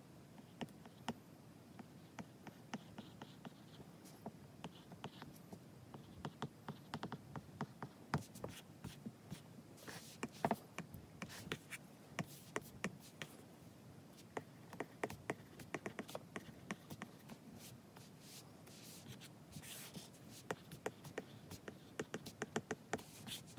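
Apple Pencil's hard tip tapping and sliding on an iPad's glass screen during handwriting and drawing: a faint, irregular stream of small clicks and taps.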